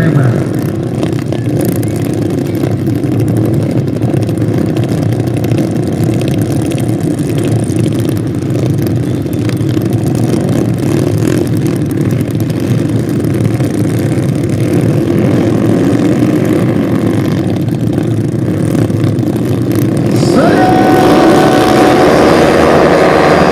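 A grid of small underbone racing motorcycles running together on the start line, then revving up hard and accelerating away as a pack about twenty seconds in.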